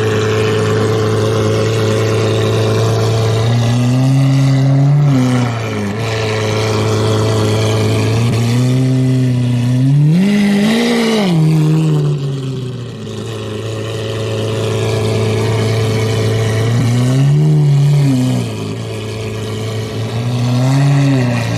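Lamborghini Aventador's V12 idling with a steady drone, revved in short blips several times. The biggest rev, about ten seconds in, climbs sharply and drops back to idle.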